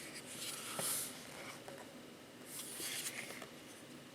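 Faint handling noise: soft rustling swishes with a few light clicks, as objects are moved about by hand.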